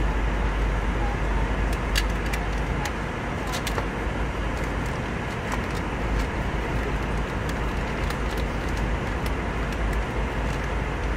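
Steady airliner cabin noise in flight, a dense even rush heaviest at the bottom end. Over it come scattered light clicks and taps as a small metal tin is handled and opened on a tray table.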